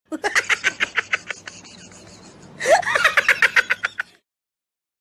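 Laughter in quick, rapid pulses, two bouts with a short lull between, cutting off suddenly near the end.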